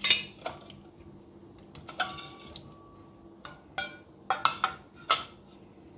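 Stainless steel bowl knocking and clinking as fish pieces are turned by hand in thick masala paste. There are several sharp knocks, and one about two seconds in leaves the bowl ringing for over a second.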